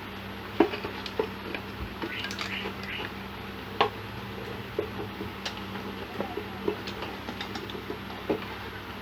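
Scattered light clicks and taps of small parts and tools being handled on a repair bench, over a steady low hum.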